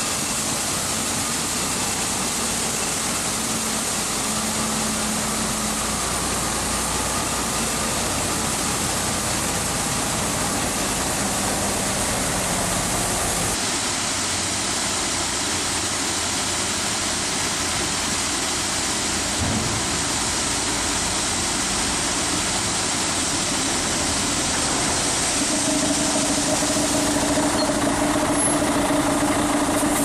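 Diesel engines of MAN trucks with grain trailers running as they drive slowly by, over a steady hiss. Near the end a steady engine hum comes in, as a truck idles close by.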